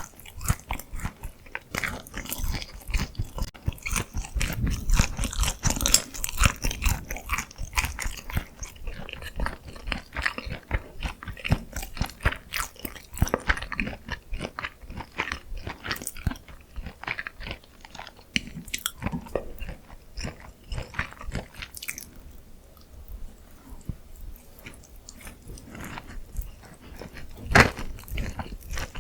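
Close-miked biting and chewing of crispy glazed Korean fried chicken (dakgangjeong): a dense run of crackly crunches that thins out past the middle, with one loud crunchy bite near the end.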